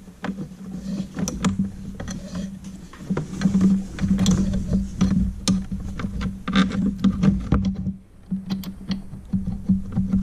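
Small metal tool clicks and taps, irregular and a few a second, as bolts are threaded in and snugged on a snowmobile's chaincase cover with a wrench, over a steady low hum.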